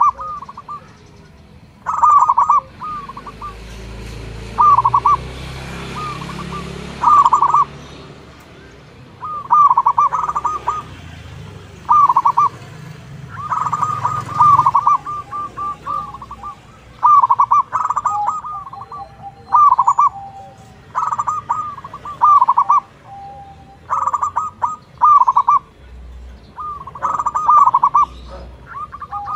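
Zebra dove (perkutut) cooing. Short phrases of rapid notes repeat every second or two.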